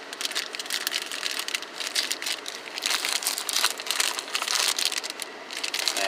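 Plastic cookie-dough wrapper crinkling in irregular bursts as it is handled, with a couple of short lulls.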